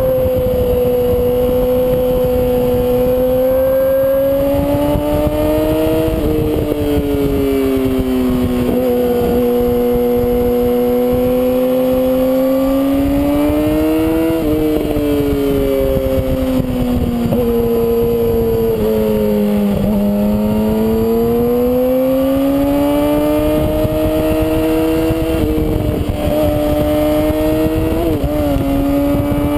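Sport motorcycle's inline-four engine under way, heard from the bike itself. Its note climbs and sags through the bends, with a few sudden drops in pitch as it shifts up, over a steady rush of wind on the microphone.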